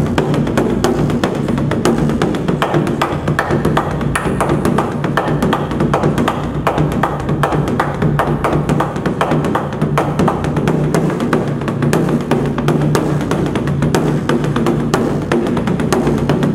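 Large Korean barrel drum (buk) beaten with two wooden sticks in a fast, unbroken run of strokes, several a second, with the drum's low ring carrying on beneath the hits.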